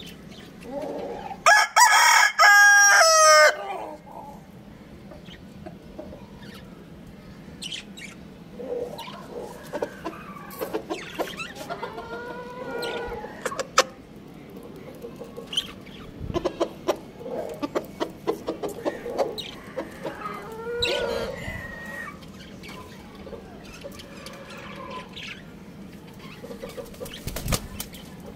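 A rooster crows once, loud, about two seconds in, lasting about two seconds. Chickens then cluck softly with short calls on and off through the rest.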